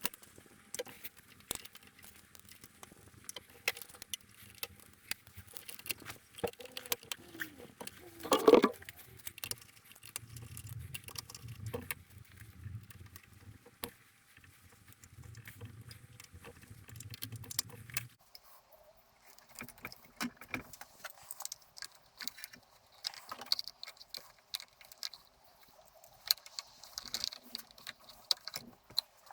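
Tools and small metal parts being handled on a workbench: scattered clicks and taps, with one louder knock about eight seconds in. A low hum runs from about ten to eighteen seconds.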